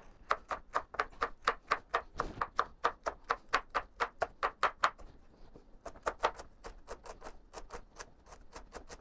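Chef's knife chopping on a wooden cutting board in quick, even strokes, about four a second, cutting up a jalapeño. About five seconds in the strokes pause briefly and go on lighter and less regular as the knife moves on to celery.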